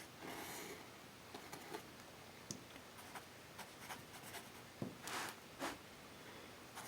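Faint handling noises on a desk: soft rustles near the start and about five seconds in, with scattered light clicks and taps in between.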